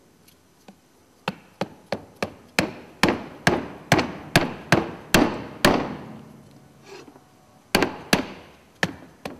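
Plastic-headed hammer tapping a stainless steel ring down into place on a valve housing: about a dozen sharp taps at two to three a second, a pause, then four more near the end, each with a brief metallic ring.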